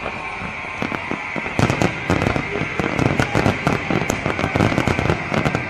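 Fireworks going off in a rapid, dense string of sharp cracks and bangs, beginning about a second in and stopping just before the end, over a steady hiss.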